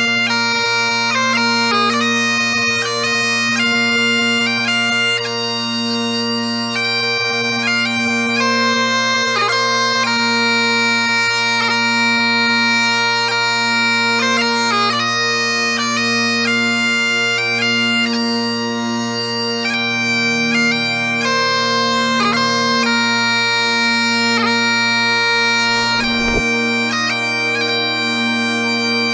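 Bagpipe music: steady drones under a chanter playing a quick melody.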